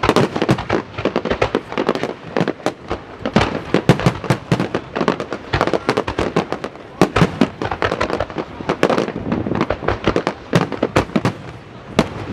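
Aerial fireworks display bursting in rapid, overlapping succession, many sharp bangs and crackles a second.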